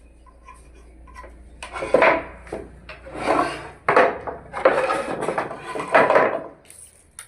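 About five scraping strokes of a hand tool on wood, each under a second long and starting sharply.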